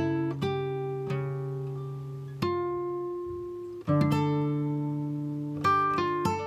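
Background instrumental music: slow plucked-string notes, each starting sharply and ringing out as it fades.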